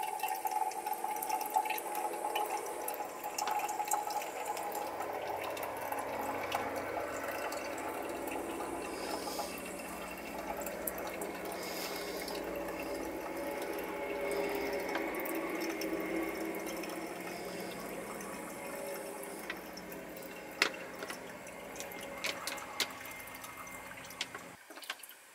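Filtered creek water trickling from a hanging homemade bottle filter into a metal cup, filling it, with a few drips ticking in the last seconds. The flow stops suddenly near the end.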